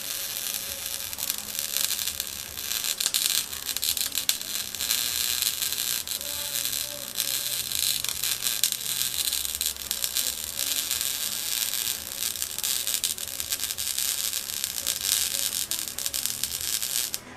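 MIG welding arc crackling and sizzling steadily as a bead is run, with a faint hum under it, stopping abruptly near the end.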